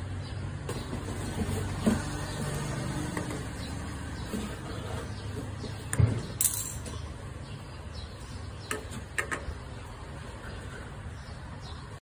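Handling noise from a 1-inch brass solenoid valve: light knocks and scrapes as it is turned in the hand, with a heavier thump about six seconds in as it is set down on a hard surface, and a couple of small clicks later. A steady low background rumble runs underneath.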